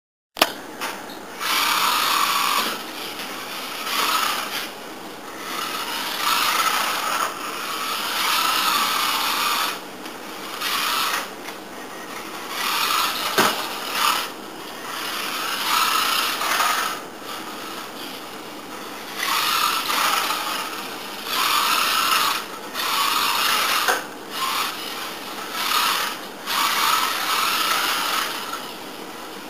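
XMods micro RC car's small electric motor and gear train whining in about a dozen short bursts of throttle, each a second or two long, with brief gaps between.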